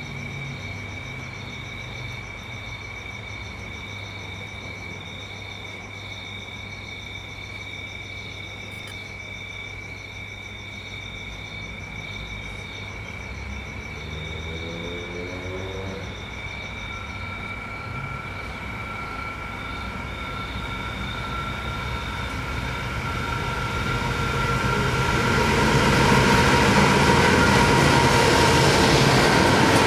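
NR class diesel-electric freight locomotives hauling a steel train approach and pass through a station. A distant engine rumble grows steadily louder from about two-thirds of the way in, and is loudest in the last few seconds as the lead locomotive goes by the platform.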